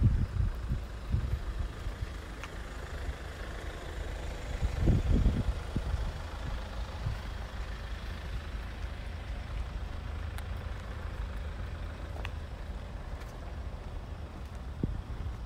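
Road traffic noise: a steady low rumble of passing vehicles, swelling louder about five seconds in.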